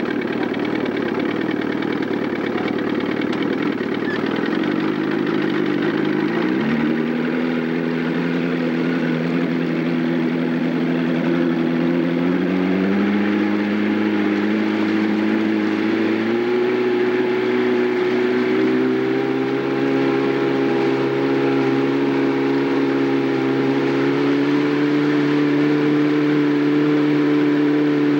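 Motorboat engine pulling a loaded tow tube and gaining speed, its pitch stepping up three times, about a quarter of the way in, near the middle and a few seconds later, then holding steady at speed.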